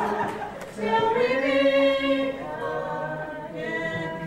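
A few voices singing together without accompaniment, starting about a second in and holding long notes.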